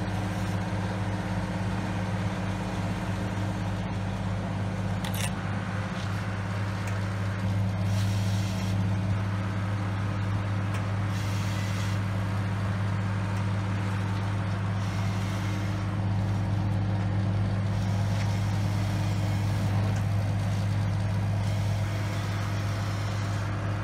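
An engine running steadily at low revs with a constant low hum.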